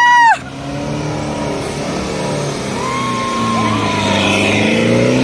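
A vehicle engine running, its pitch climbing slowly as it revs up. It opens with a short, loud, shrill whoop that rises and falls, and a brief thin high tone sounds about three seconds in.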